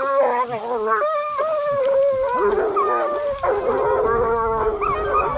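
A pack of Ariégeois hounds baying in full cry, several voices overlapping in long, drawn-out howling notes. They are giving tongue on the line of a quarry that has just broken away.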